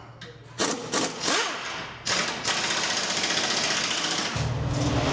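Repair-bay noise during front suspension work: a few sharp metal knocks, then a steady rush of air from about two seconds in, joined near the end by a low, rapid mechanical rattle.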